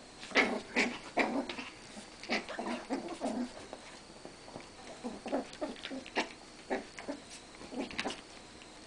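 Two rat terriers play-fighting, with a rapid, irregular run of short growls and snarls that thins out after the first few seconds.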